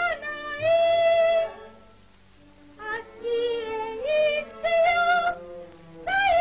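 Cartoon soundtrack music: a melody of held, slightly wavering notes in short phrases, with a lull about two seconds in.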